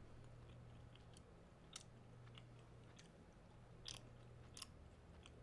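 Near silence with a low room hum and a few faint, short clicks scattered through it.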